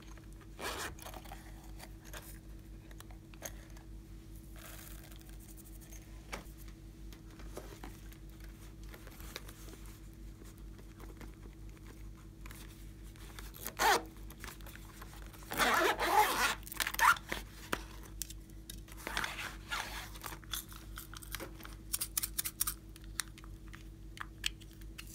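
Glossy slime being worked and mixed by hand: scattered crackling clicks and small pops, with a denser run of crackling about two thirds of the way in and quick clicking near the end.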